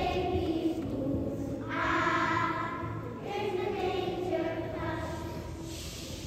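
A children's choir singing in unison in long held notes, three phrases with short breaks between them.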